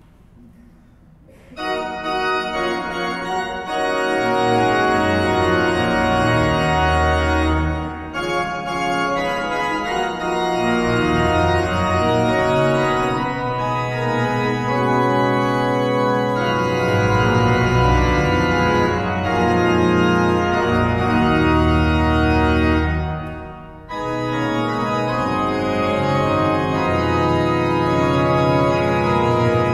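Pipe organ playing full sustained chords, entering about a second and a half in, with deep pedal bass notes under them twice and short breaks between phrases.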